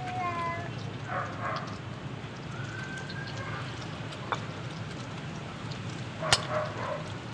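Wood fire burning in a clay chulha, a steady low crackle with scattered pops and a sharp snap about six seconds in as the fire is poked. A cat's meow trails off at the very start.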